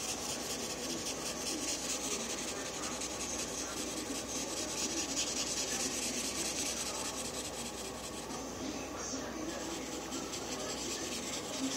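Red felt-tip marker scratching on paper in rapid back-and-forth strokes, colouring in a drawing; the scratching eases a little after about eight seconds.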